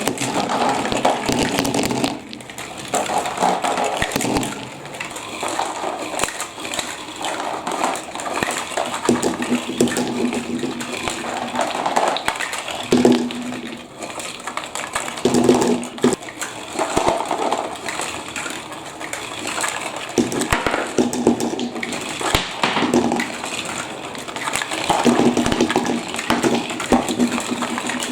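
Marbles rolling and clacking through plastic block and magnet track pieces with water running along the course. A low rolling hum comes and goes several times.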